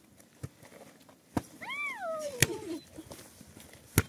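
A volleyball being struck by hand as it is passed back and forth: sharp slaps about a second apart, the loudest near the end. Between two hits comes a drawn-out call of about a second that rises and then falls in pitch.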